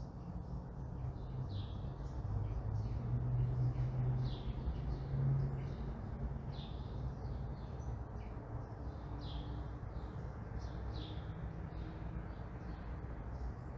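Outdoor morning ambience: a bird chirps repeatedly, short calls about one a second, over a steady low rumble of traffic that swells for a few seconds near the start, as if a vehicle passes.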